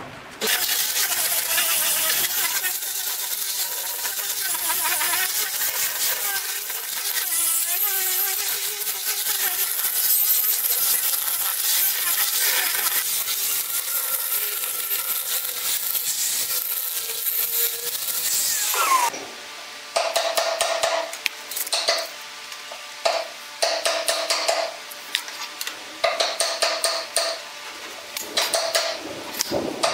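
Angle grinder fitted with a sanding disc running against a wooden panel, its pitch wavering under load, stopping about two-thirds of the way through. After it, a run of short scraping strokes.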